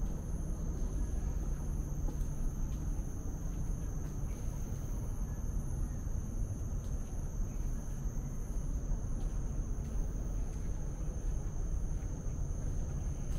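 Outdoor ambience: a steady high-pitched drone of insects over a low, constant rumble of background noise, with a few faint ticks.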